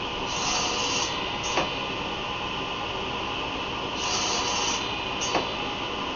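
Table saw running steadily with its blade raised about an eighth of an inch, making two short nibbling passes through wood to clear a shallow dado. Each cut lasts under a second and is followed by a sharp knock.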